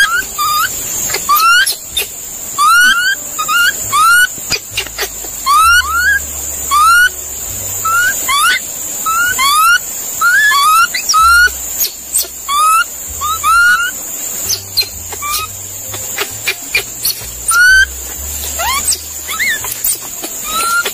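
Monkey calling: short, squeaky calls that rise in pitch, repeated irregularly about once or twice a second, often in quick pairs, over a steady high hiss.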